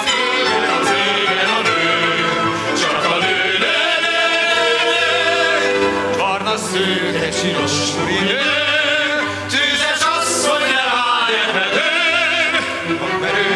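A stage-show song: a man singing with strong vibrato over an orchestral accompaniment.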